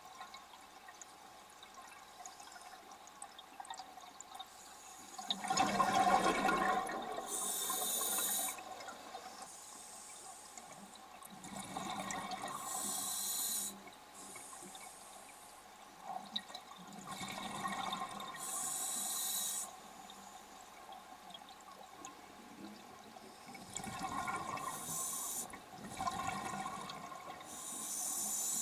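Scuba diver breathing through a demand-valve regulator underwater: a regulator hiss and a rush of exhaled bubbles, about four breaths roughly six seconds apart after a quiet first few seconds.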